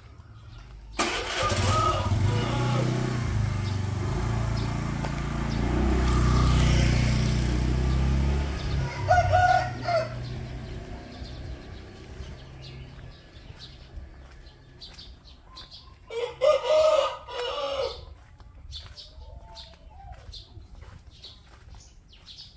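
A motor vehicle engine starts up suddenly about a second in, runs loudly for several seconds and then fades away. A rooster crows twice, about nine seconds in and again about sixteen seconds in.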